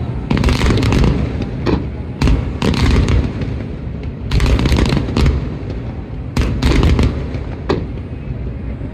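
Aerial fireworks shells bursting in quick succession: about eight sharp reports, some in close pairs, each with a deep boom.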